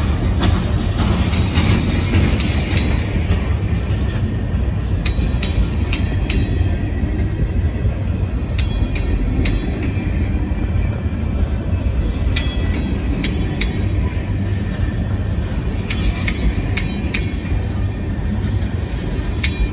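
Freight train cars rolling past at close range, a steady low rumble of wheels on rail, with irregular metallic clanks and brief ringing squeals from the wheels and car bodies now and then.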